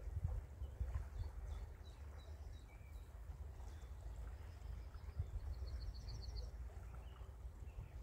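Wind buffeting the microphone with a low, uneven rumble, while small birds chirp, one giving a quick high trill of repeated notes partway through.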